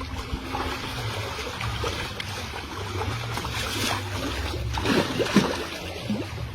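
Water splashing and dribbling in irregular bursts, heaviest about five seconds in, over a low steady hum.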